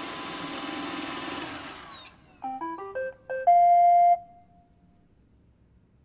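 Roomba 800-series robot vacuum's suction and brush motors running, then winding down with a falling whine as it settles onto its charging dock. A short electronic tune follows: about five quick beeps climbing in pitch and a held final note of about half a second, the Roomba's signal that it has docked.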